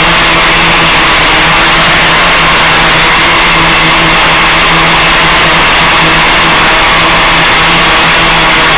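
Loud, steady hiss with a constant low hum, the audio of an analog FPV video link received from a Gaui 500X-S helicopter.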